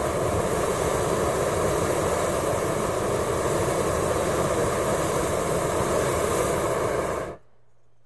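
Hot-air balloon's propane burners fired in one long, steady blast that cuts off sharply near the end, leaving only a faint low hum.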